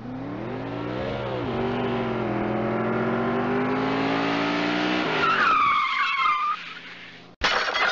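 Car crash sound effect: an engine revving for about five seconds, a high tyre screech about five seconds in, then a sudden loud impact just before the end.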